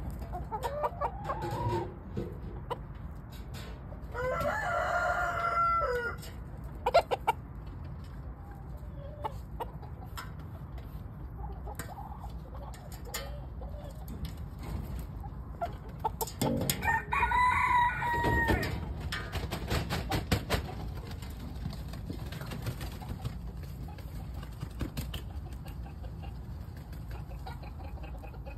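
Rooster crowing twice: one long call about four seconds in and another about sixteen seconds in. Between them, chickens cluck and there are scattered clicks.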